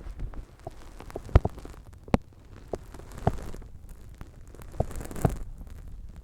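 Hands rubbing and massaging a microphone's ears close up: a steady crackling rustle with scattered sharp taps, several of them louder.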